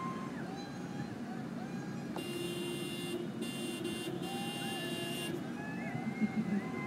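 A vehicle horn sounds for about three seconds, breaking off twice, over the voices of a crowd and traffic.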